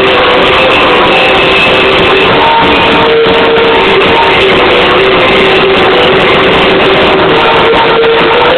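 Loud guitar-driven rock music with strummed guitar.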